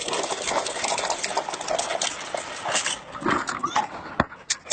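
Hard plastic wheels of a Big Wheel-style tricycle rattling and grinding along asphalt, with a sharp knock a little after four seconds in as the trike tips over.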